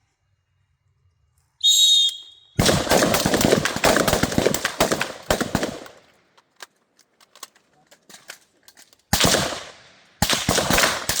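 A shot timer's start beep, about a second long, then a line of rifles firing together in a dense run of overlapping shots for about three seconds. Scattered single shots follow while shooters reload, and a second run of firing starts about nine seconds in.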